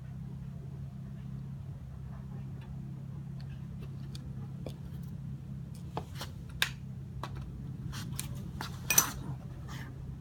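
Light clicks and clinks of small parts being handled, several in the second half and the loudest about nine seconds in, over a steady low hum.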